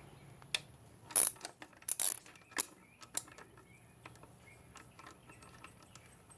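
Ratchet wrench and socket clicking and clinking on the throttle body's 10 mm bolts: a run of sharp metallic clicks, loudest in the first half, then fainter ticks.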